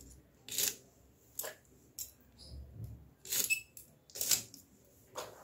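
Green beans being cut into pieces: about six short, crisp cutting sounds at uneven intervals.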